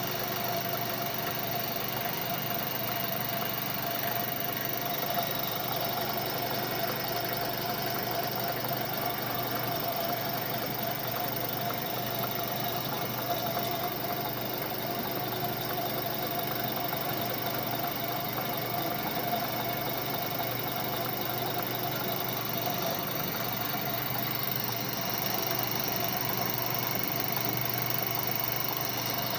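Lathe running steadily: a continuous machine hum with a steady whine.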